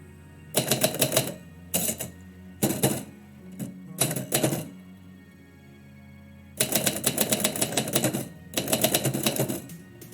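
Typewriter keys striking in quick bursts of typing, with short pauses between runs. The longest runs come in the second half, over instrumental background music.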